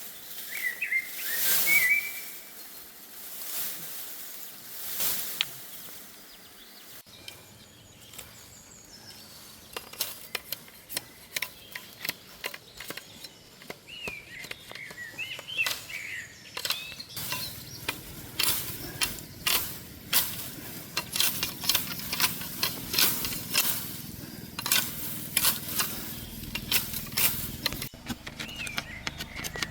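Small birds chirping in short, pitch-bending calls, mixed with many sharp taps and clicks that grow denser in the second half. A low steady rushing noise sets in about halfway through.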